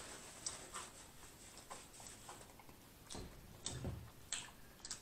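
Close-miked chewing of fried food: soft, irregular wet clicks and smacks from the mouth, with a faint low thud a little after three seconds in.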